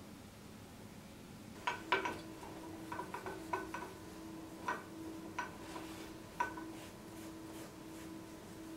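Light metal-on-metal clinks and taps, about eight in an irregular run, each with a short ring, as small metal pieces are handled on a workbench. A faint steady hum runs beneath from about two seconds in.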